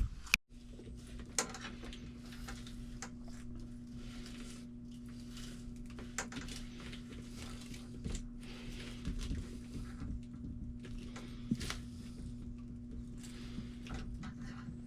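Hand-work noises from electrical wiring: scattered light clicks, taps and rustles of cable and parts being handled, over a steady low hum. A sharp click and a brief dropout come about half a second in.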